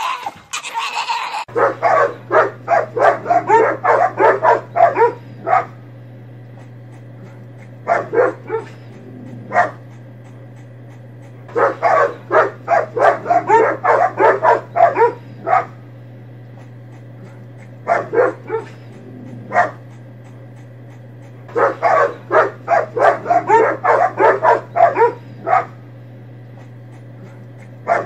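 A German Shepherd-type dog and a smaller tan dog barking at each other through a gate, in bursts of rapid barks that repeat roughly every ten seconds over a steady low hum. A brief loud shrill cry comes first, for about a second and a half.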